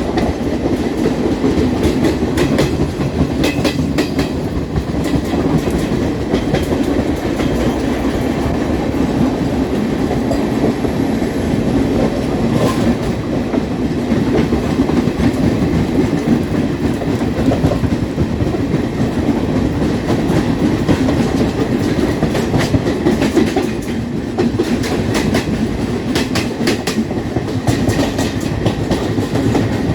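Express passenger train running at speed, heard from on board: a steady rumble of wheels on rail, with runs of clickety-clack wheel clicks over rail joints a few seconds in, about midway, and again near the end.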